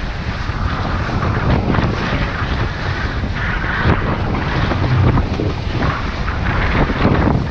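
Wind buffeting the microphone over the rush of sea water along the hull of a sailing catamaran under way.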